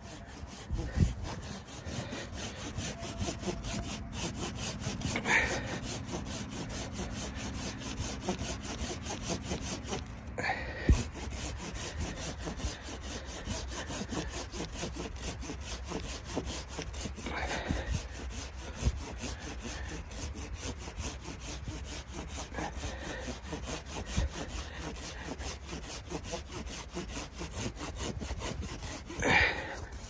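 Folding hand saw cutting through fallen pine branches, rapid back-and-forth strokes rasping through the wood, with brief breaks where the cutting stops and restarts.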